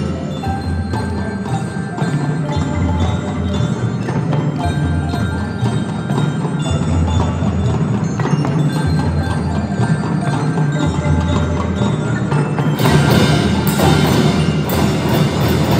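Children's marching band playing, with ringing mallet bells carrying the melody over percussion. It grows louder and brighter about three-quarters of the way through.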